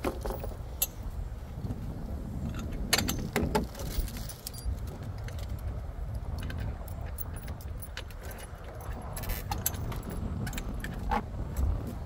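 Small steel mounting hardware (bolts and lock washers) clinking and rattling as it is handled in its plastic bag and fitted to metal seat belt receiver brackets, with scattered sharp clicks, over a steady low rumble.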